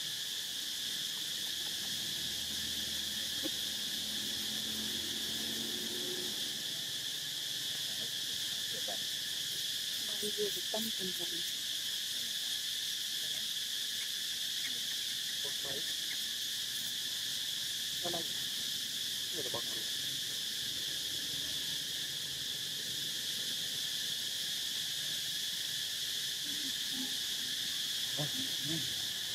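Steady chorus of insects in the forest, an unbroken high buzz at an even level. A few faint short low calls break in now and then.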